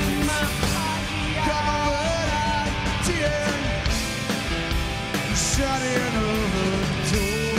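Live rock band playing: a male lead voice sings over electric guitar, bass guitar and drums.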